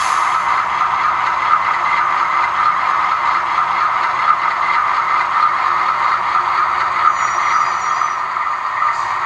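Sound decoder in an HO-scale Conrail GE B36-7 model locomotive playing a steady diesel engine sound through its small onboard speaker while the model runs slowly. The sound is thin, with little deep bass.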